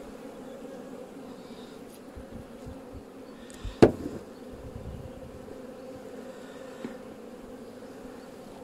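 Honeybees buzzing over an open hive, a steady hum. One sharp knock about four seconds in.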